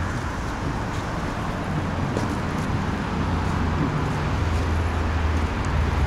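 City road traffic: a steady rush of passing cars, with a vehicle engine's low drone getting louder in the second half.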